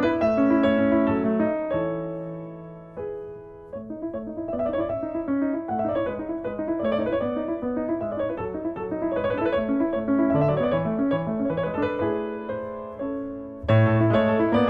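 Background piano music: a melody of separate notes over lower chords, fading down about two to three seconds in before building again.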